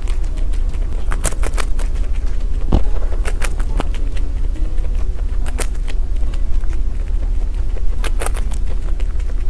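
Degu nibbling a crisp wafer close to the microphone: sharp crunches in short clusters every couple of seconds, over a steady low rumble.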